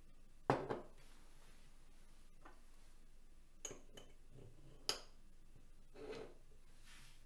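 Handling noise from 3D-printed microscope tube parts and an eyepiece: light clicks and knocks as the eyepiece is fitted into the tube and the assembly is set down on a wooden table. A sharp knock comes about half a second in, a few clicks follow around the middle, and a softer thump comes near the end.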